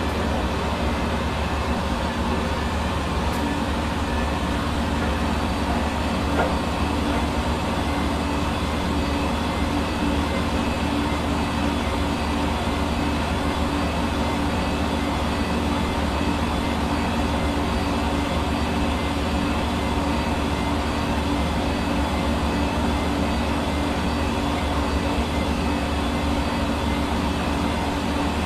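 Hair dryer running steadily: a constant whooshing blow of air over its motor's hum, unchanging throughout.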